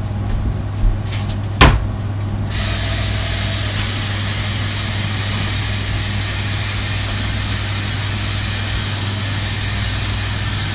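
A single sharp knock, then from about two and a half seconds in a kitchen faucet runs steadily, filling a pan with water.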